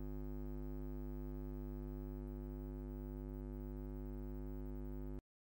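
A steady low hum with a buzzy edge, unchanging in pitch and level, which cuts off suddenly about five seconds in.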